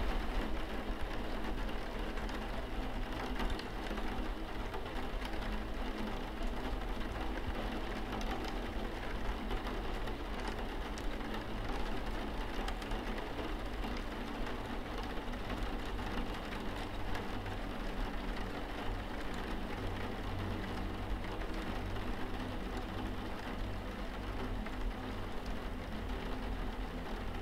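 Steady rain on a window pane, an even patter with scattered drop ticks, over a low steady hum.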